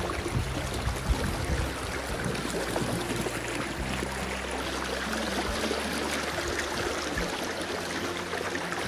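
Fast-flowing river water rushing steadily, an even full-range rush of current.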